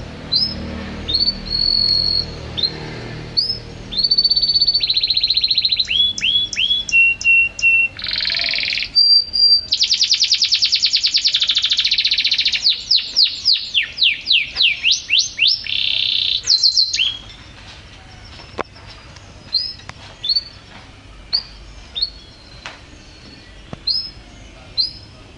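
Domestic canary singing: a few short high chirps, then from about four seconds in a long loud run of rapid trills and fast repeated notes lasting some thirteen seconds that stops abruptly. After it come scattered single chirps.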